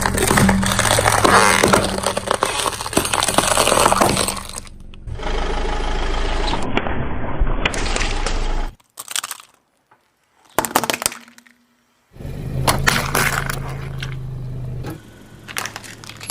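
Car tyre rolling over and crushing brittle objects: dense cracking and breaking over the low hum of the car's engine, in several short takes with abrupt cuts between them.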